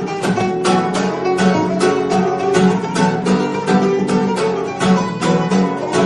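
Background music: a plucked-string instrumental, guitar-like, with quick repeated notes at a steady pace.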